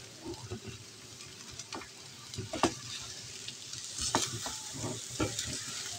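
Mashed potato mixture with onion and green chilli frying in oil in a nonstick pan, a light steady sizzle, with irregular scrapes of a spatula stirring and pressing it against the pan.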